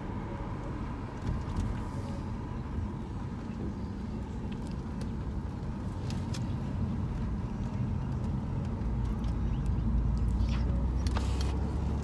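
Car driving at low speed, heard from inside the cabin: steady engine and tyre rumble that swells a little over halfway through, with a few faint clicks.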